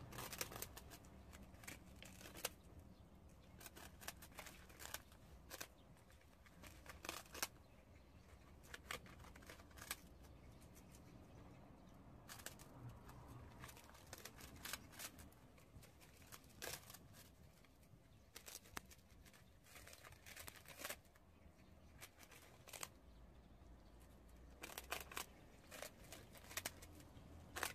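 Prairie dogs gnawing on crisp puffed rice cakes: faint, irregular crunches and snaps, some in quick clusters of two or three.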